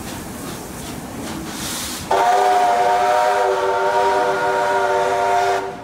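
Train of heritage carriages rolling past, then a steam locomotive's whistle sounds one long, steady chord-like blast. The blast starts abruptly about two seconds in and stops shortly before the end.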